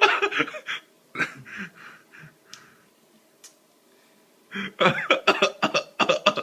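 A man burping: a sharp burp about a second in with a few weaker ones after it, then a pause and a loud run of burps near the end.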